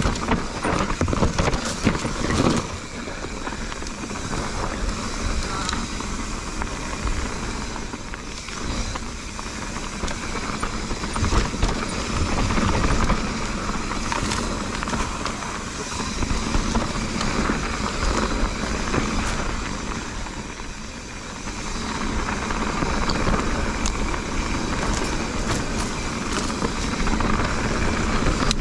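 Mountain bike riding a dirt trail: tyres rolling over dirt and rock, with frequent knocks and rattles from the bike over bumps and wind rushing on the chest-mounted action camera's microphone.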